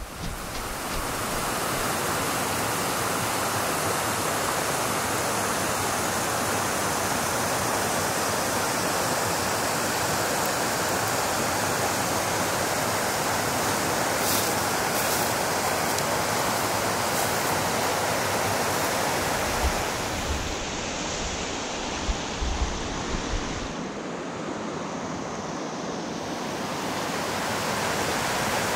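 Steady rushing of a small creek's water flowing over rocks, with a few soft thumps about two-thirds of the way through.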